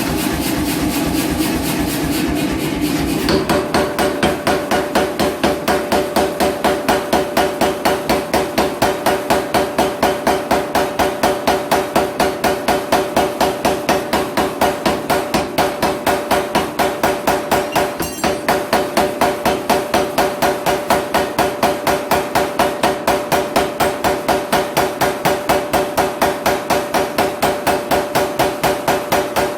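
Power hammer striking hot steel in a fast, even rhythm of about three blows a second, each blow ringing. A steady whir comes first, and the blows begin about three seconds in.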